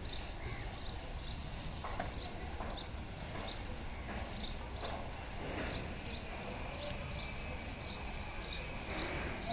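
A few irregular hoof steps from a red Brahman bull being led on a rope across a concrete yard. Small high chirps repeat in the background.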